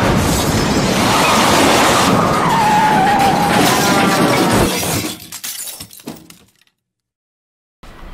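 Loud crash with glass shattering and debris clattering, which dies away about five seconds in and leaves silence.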